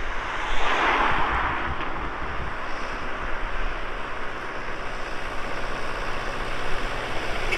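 Tractor engines running on the road as the convoy approaches, a steady rumble and hiss, with a louder brief hiss about a second in.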